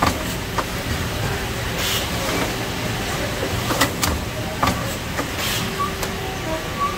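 Apple top-seal packaging machine running: a steady mechanical hum with sharp, irregular clacks, and two short hisses about two seconds and five and a half seconds in.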